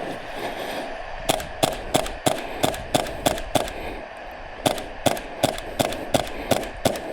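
Quick, evenly paced footsteps, about three a second, in two runs with a pause of about a second between them.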